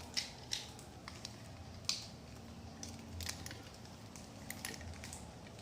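Faint, scattered clicks and taps, about ten at irregular intervals, from wire ends being handled at the terminals of a 12-volt battery.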